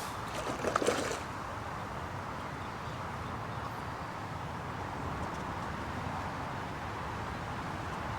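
Steady outdoor background noise with no clear source, after a brief scraping rustle in the first second.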